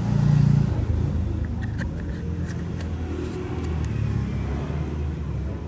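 Low, steady rumble of motor traffic, loudest in the first second, with a few light clicks.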